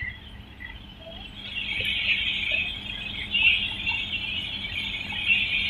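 WDP4D diesel locomotive creeping forward, with a high-pitched squeal from its running gear that swells about a second and a half in and then holds steady, over a low steady engine hum.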